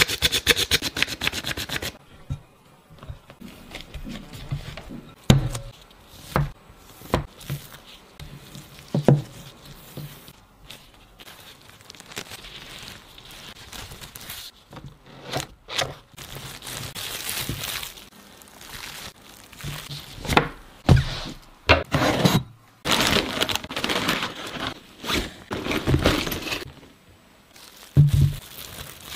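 Baking prep handling sounds: a quick run of clicks as a hand-squeeze flour sifter sifts flour and milk powder into a glass bowl, then scattered knocks, scrapes and plastic-film crinkling as pastry dough is rolled up and wrapped in cling film.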